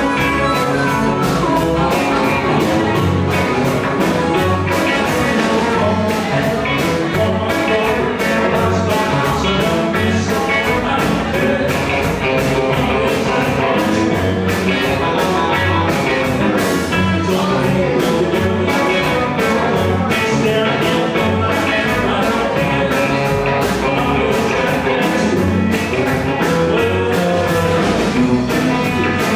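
Live blues band playing, with electric guitars, an upright double bass and a drum kit keeping a steady beat.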